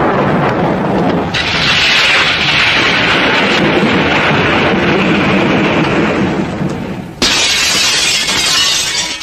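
Film sound effect of a lightning bolt fired from a hand: a loud, harsh, sustained noise that turns hissier about a second in. It fades a little, then comes back as a sudden loud burst near the end.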